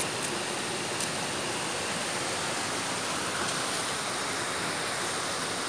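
Steady, even rushing noise with no clear source, with two faint clicks in the first second.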